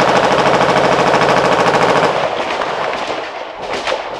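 A long burst of automatic machine-gun fire, close and loud, that stops about two seconds in and echoes away. A few more shots follow near the end.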